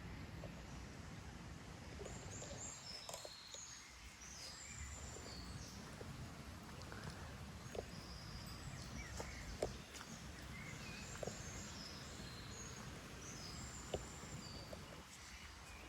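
Faint outdoor nature ambience: many short, high bird chirps over a low, steady rumble, with a few sharp clicks now and then.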